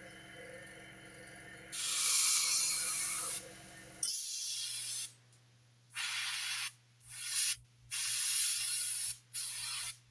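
Airbrush spraying paint onto a plastic scale model, hissing in about six short bursts as the trigger is pressed and released, starting about two seconds in.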